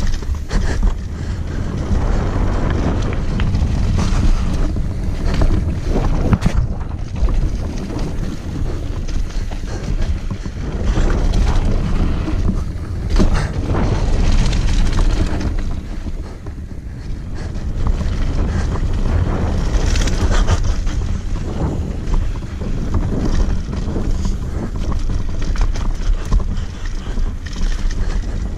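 Wind buffeting the microphone as a mountain bike descends a dirt jump line at speed, with the tyres crunching over packed dirt and loose gravel and the bike rattling over bumps. The rush eases briefly a little past halfway.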